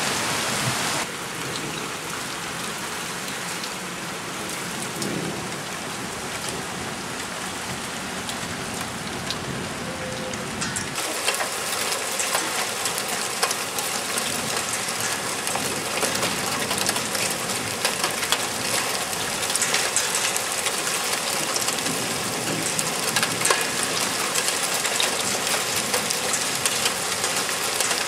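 Heavy hail falling hard, a dense hiss of hailstones striking the ground and roofs, with many sharp ticks of single stones. About eleven seconds in it turns louder and sharper.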